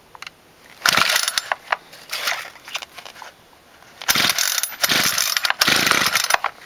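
Recoil pull-starter of a cold Homelite engine being yanked repeatedly, each pull a loud, rapid ratcheting whirr of cord and pawls lasting up to about a second, without the engine catching.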